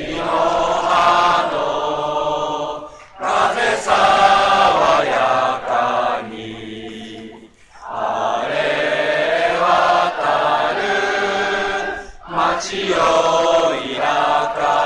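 Stadium crowd of football supporters singing the prefectural song in unison, in long sung phrases broken by short pauses about every four seconds.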